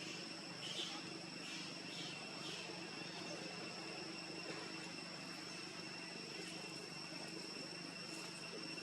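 Steady insect chorus of crickets or cicadas, a few constant high-pitched tones over a faint low hum. Four or five short, high calls come in the first few seconds.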